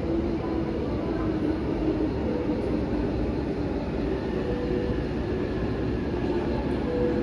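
JR Joban Line electric commuter train running: a steady rumble of wheels and car body with faint wavering motor tones above it.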